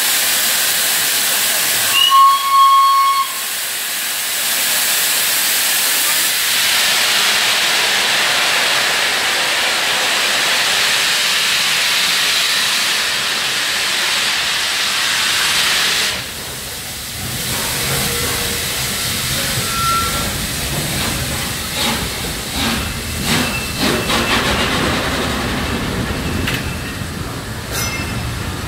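LNER Peppercorn A1 steam locomotive 60163 Tornado hissing steam, with one short whistle blast about two seconds in, then loud steady steam hiss as it pulls away. About sixteen seconds in the hiss drops off, and the low rumble and clicking of coaches rolling past take over.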